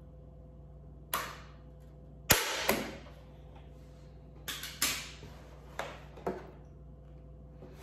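Hand staple gun snapping staples through a plastic trash-can lid into the wood beneath: a lighter shot about a second in, then the loudest snap about two and a half seconds in with another just after. Several smaller knocks and clacks follow as the plastic lid is pried up off the wood.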